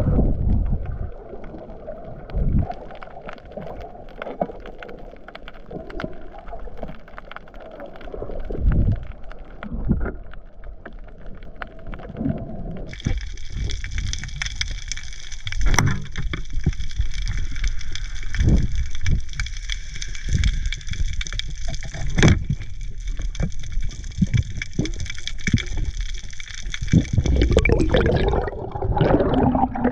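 Muffled underwater sound of a freediver spearfishing, picked up by a camera underwater: water gurgling and sloshing with scattered knocks. From a little under halfway until near the end, a steady high-pitched whine made of several constant tones runs underneath, starting and stopping abruptly.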